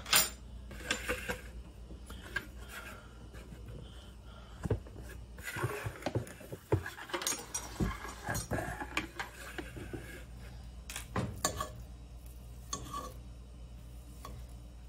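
Irregular clinks and knocks of cookware and utensils on a gas stovetop: a metal fork tapping and scraping in a cast iron skillet among pans being handled.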